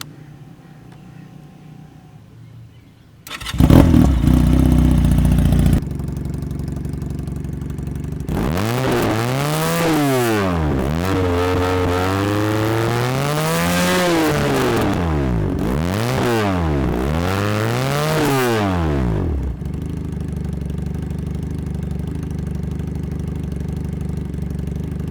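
Valentino Taro 250 twin-cylinder motorcycle engine starting up about three seconds in and idling, then revved up and down repeatedly for about ten seconds before settling back to a steady idle.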